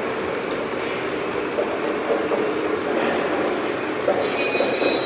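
O scale model freight train rolling along the layout track: a steady rumble of its wheels on the rails as the long string of cars passes. A faint high whine joins about four seconds in.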